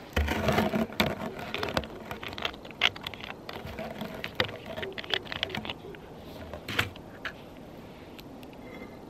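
Plastic screw cap being twisted off a Primus liquid-fuel bottle and the bottle handled: a quick run of clicks and scrapes, busiest in the first second, thinning out after about six seconds.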